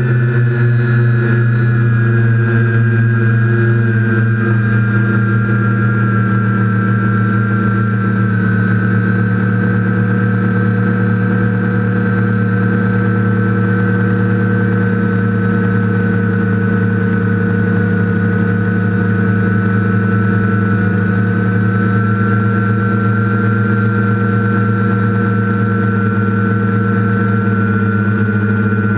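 TBS Discovery quadcopter's electric motors and propellers buzzing steadily in flight, heard from the camera on board, the pitch drifting a little as the throttle changes.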